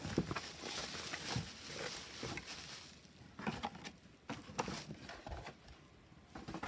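Hands handling an oracle card deck's packaging: rustling at first, then a string of small clicks, taps and scrapes that grow quieter towards the end.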